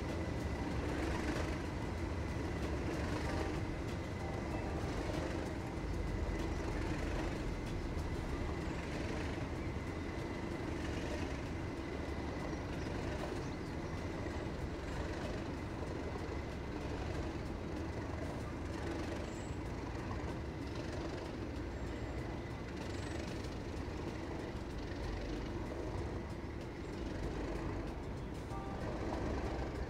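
Class 37 diesel-electric locomotive's English Electric V12 engine running steadily as the locomotive pulls slowly away, growing slightly fainter. A thin steady whine sounds over it and fades out about halfway through.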